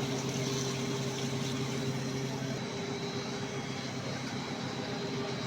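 Rice milling machinery running with a steady mechanical hum; its strongest low tone fades about two and a half seconds in.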